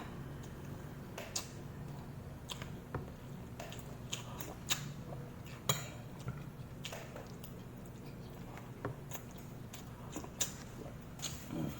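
Eating sounds: scattered light clicks and clinks of cutlery on dishes, with chewing, spaced irregularly over a low steady hum.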